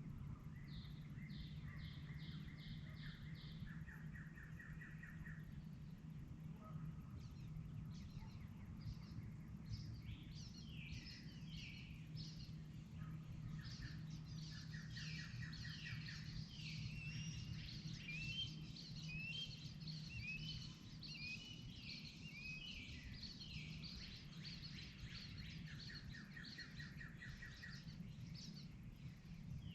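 Dawn chorus of several songbirds singing and calling at once, with rapid trills of repeated notes. A low steady hum runs underneath.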